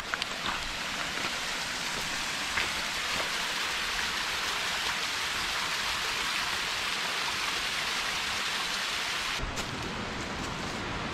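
Steady rush of flowing water from a stream, an even hiss with no break, changing character slightly near the end.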